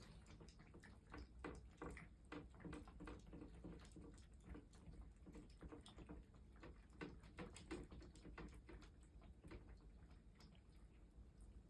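Cats eating, a faint, fast, irregular run of crunches and clicks from their chewing.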